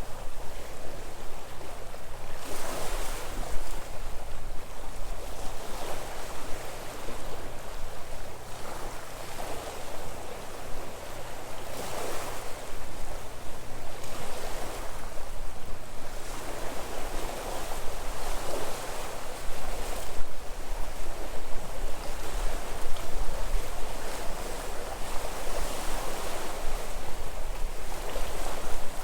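Sea waves breaking and washing on a rocky shore, swelling and easing every few seconds, with a steady low wind rumble on the microphone.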